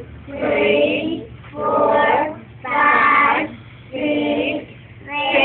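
Child and teacher counting aloud slowly in a sing-song chant, one drawn-out number about every second, as counters are placed one by one.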